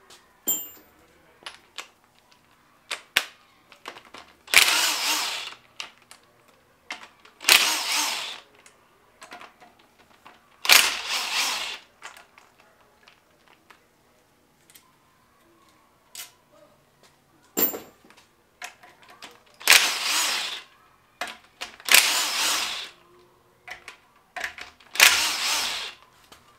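Cordless impact wrench backing out the 10 mm bolts of a Honda K20 engine's side cover, in six short runs of about a second each. Light clicks and clatter of bolts and tools come between the runs.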